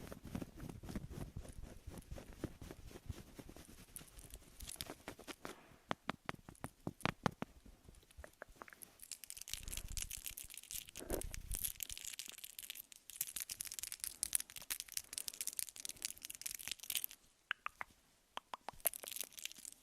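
Close-miked ASMR trigger sounds: a dense run of quick clicks and scratchy, crinkly noises coming in bursts, with a short lull near the end.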